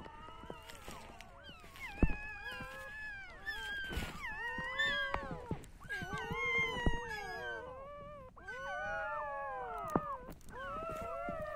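Several newborn puppies crying and whining together, high thin overlapping cries that rise and fall. A few sharp knocks stand out, the loudest about two seconds in.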